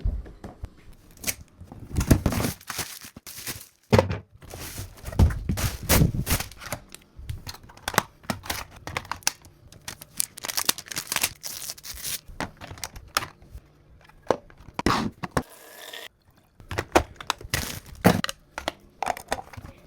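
Cardboard and plastic packaging being torn open and crinkled by hand, in irregular rips and rustles with occasional thunks as parts are handled.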